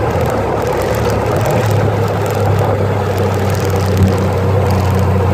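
Honda Goldwing GL1500's carbureted flat-six engine revving as the throttle is opened slowly, settling into a steady higher-rev drone after about a second and a half. The slight hesitation in the pickup is put down by the owner to the accelerator pump.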